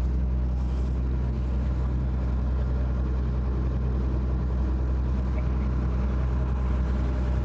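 A boat's engine running steadily under way, a constant low drone with no change in pitch.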